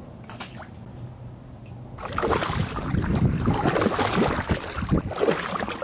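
Water sloshing and splashing as a canoe's pole is pushed down into shallow backwater beside the wooden hull, starting suddenly about two seconds in; before that only a few faint drips.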